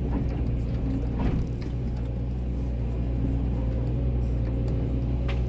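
Volvo EC140DL hydraulic excavator's diesel engine running steadily under load, heard from the operator's seat, as the boom lifts a full bucket of soil out of the trench and swings it to the spoil pile.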